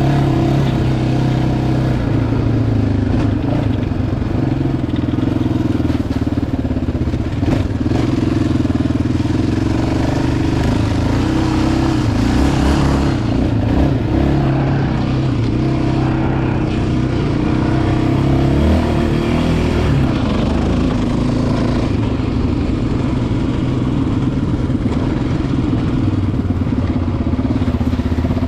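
Yamaha Raptor 700R sport ATV's single-cylinder four-stroke engine running under way on a trail, its note steady and loud with some shifts in pitch as the throttle changes about two-thirds of the way through.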